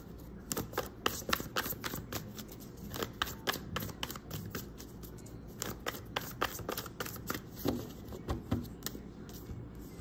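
A deck of tarot cards being shuffled by hand: a run of quick, irregular snaps and flicks, several a second.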